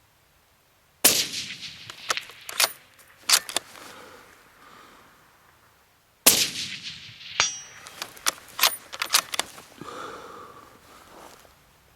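Two shots from a suppressed Remington 700 AAC bolt-action rifle in 7.62x51 fitted with a Gemtech HVT suppressor, about five seconds apart. After each shot comes a run of sharp metallic clicks as the bolt is worked to eject the case and chamber the next round. A brief metallic ring follows the second run.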